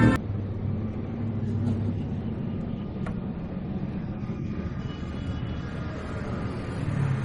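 A steady low engine rumble, running evenly at moderate loudness.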